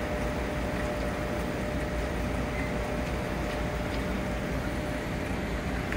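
Steady hum and hiss of aquarium room equipment, with a faint constant tone running through it.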